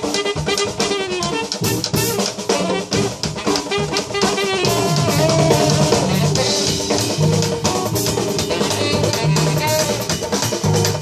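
Live band playing a busy groove led by a drum kit and candombe hand drums (tambores), dense drum strokes throughout, with held melodic notes over the rhythm.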